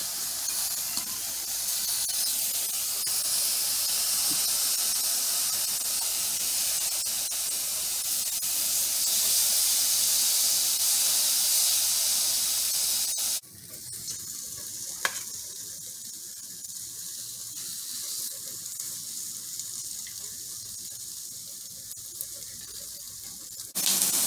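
Thin-cut carne asada beef steaks sizzling on an electric indoor grill as they are turned with metal tongs. The steady sizzle drops suddenly to a quieter hiss about halfway through.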